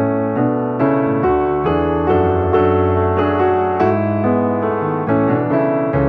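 Background piano music, a continuous run of single notes and chords struck about twice a second.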